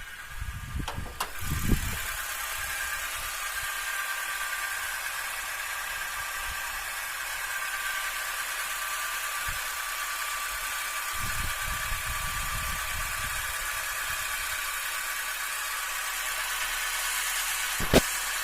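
Honda City engine idling steadily after starting on the first crank now that its battery terminals have been cleaned. Low rumbles come about a second in and again around twelve seconds, and a single sharp click sounds near the end.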